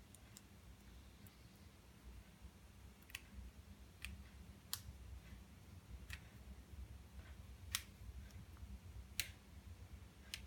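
Faint, irregular small clicks and taps, about ten of them, of hand tools working on the small parts inside an iPhone 5, over a low steady hum.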